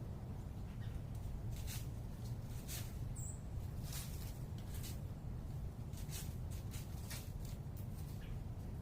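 Steady low rumble of distant urban background noise, with scattered faint, irregular ticks and clicks and one brief high chirp about three seconds in.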